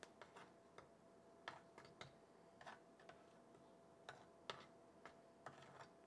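Faint, irregular taps and scrapes of a metal spoon pressing and smoothing a damp baking soda and washing soda paste into a plastic ice cube tray.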